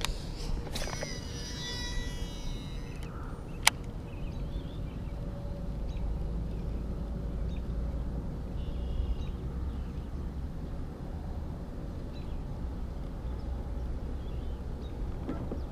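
Steady low outdoor rumble on open water, with birds calling in a quick run of high, gliding notes about a second in and again faintly near nine seconds, and one sharp click shortly before four seconds.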